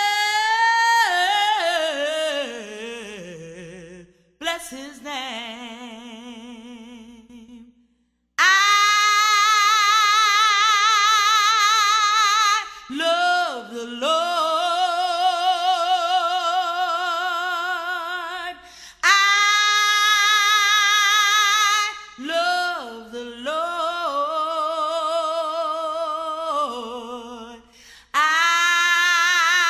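A woman singing a gospel song unaccompanied, holding long notes with a wide vibrato and sliding through runs between them, with short pauses for breath between phrases.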